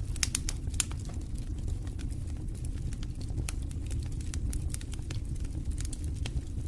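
Wood fire burning in a fireplace: a steady low rumble with frequent sharp crackles and pops, several close together in the first second.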